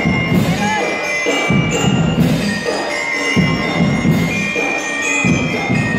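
Drum and lyre corps playing: bell lyres ring out a melody of sustained metallic notes over the band's drums.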